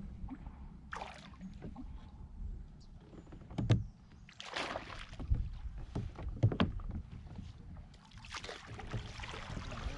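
Water splashing and sloshing around a plastic fishing kayak, with a few sharp knocks on the hull, the loudest about four and six and a half seconds in.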